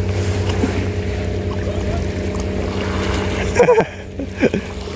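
A steady low engine hum at an even pitch, with two brief pitched cries about three and a half and four and a half seconds in.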